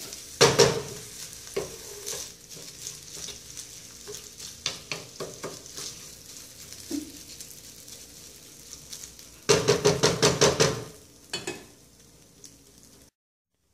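Wooden spoon stirring and scraping rice as it toasts in hot oil in a frying pan, over a steady light sizzle. A fast run of scraping strokes comes about two-thirds of the way through, after which the stirring stops and only the faint sizzle remains.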